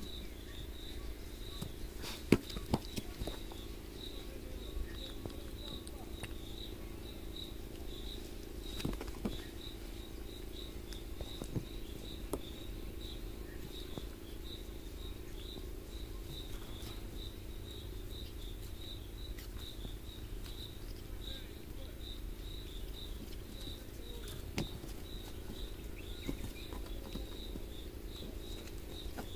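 An insect chirping steadily, about two short high chirps a second, with a few scattered soft knocks and rustles.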